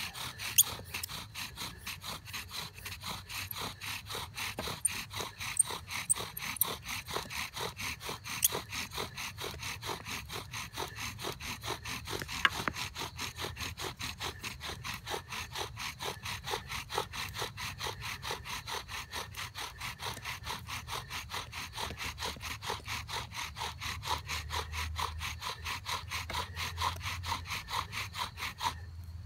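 Bow drill fire-making: a carved wooden spindle grinds in a wooden fireboard as the bow is sawn back and forth in a steady, fast rhythm, with a few sharp clicks along the way. The strokes stop just before the end.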